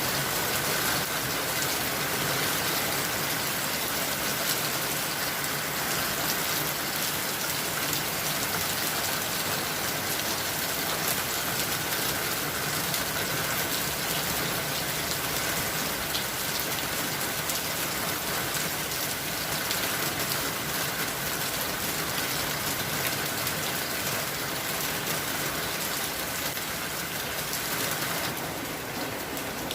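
Steady rainfall: a dense, even hiss of rain with many small drop impacts, easing slightly near the end.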